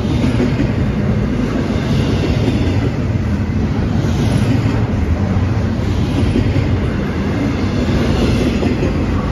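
Norfolk Southern freight train's double-stack intermodal well cars rolling past close by: a steady, loud rumble of steel wheels on rail.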